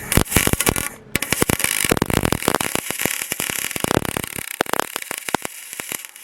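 Welding arc on aluminum crackling and sputtering in a dense irregular stream, stopping briefly about a second in and then carrying on.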